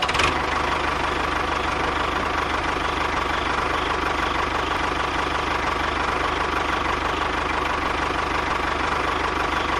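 An engine idling steadily, with a fast, even knocking beat and a faint steady whine.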